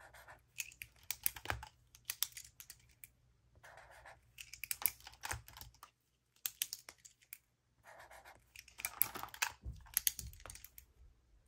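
Zebra Clickart retractable markers being clicked and handled in quick clusters of plastic clicks and taps, with short scratchy passages of a marker tip drawing swatch squiggles across paper. It goes briefly quiet a little past the middle.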